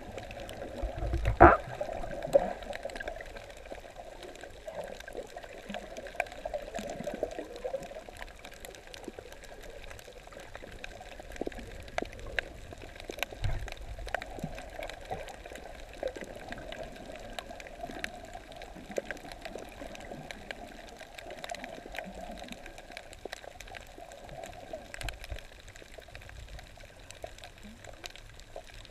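Underwater sound picked up by a camera held just below the surface over a coral reef: a steady muffled wash of water with a scatter of faint crackling clicks, and one sharp knock about a second and a half in.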